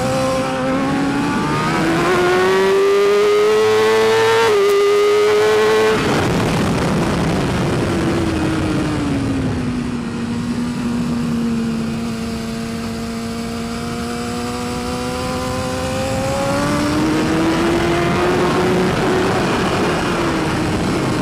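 BMW S1000RR's inline-four engine pulling hard at high revs, with wind noise. The engine note climbs over the first few seconds with a brief dip about four and a half seconds in, drops away around six seconds, holds lower and steady through the middle, then climbs again near the end.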